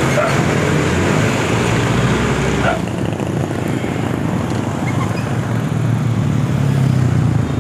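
Street traffic heard from a moving bicycle: a steady rushing noise with the low hum of nearby motorcycle and car engines. The rushing eases slightly about three seconds in, and the engine hum grows stronger near the end.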